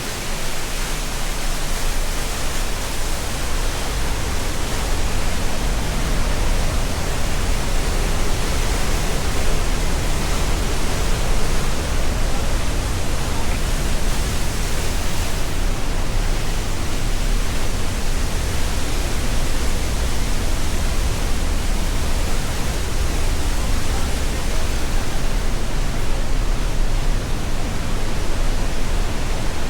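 Glacial meltwater of the Gornera river rushing through a narrow rock gorge: a loud, steady roar with a deep rumble underneath.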